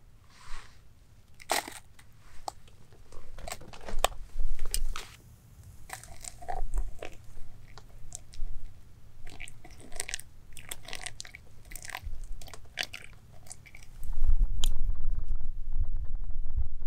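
Clinks, scrapes and crinkling rustles of a metal spoon, a plastic tub and a paper coffee filter on a plastic groundsheet as grounds are spooned into the filter and hot water is poured through it into a steel mug. About 14 seconds in, a steady low wind rumble on the microphone takes over.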